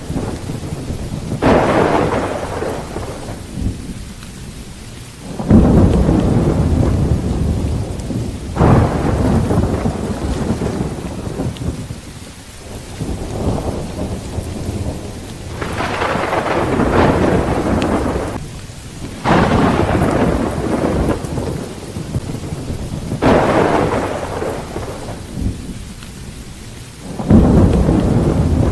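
Thunder rumbling again and again in a thunderstorm, about eight peals, several starting suddenly and fading over a few seconds, with rain falling throughout.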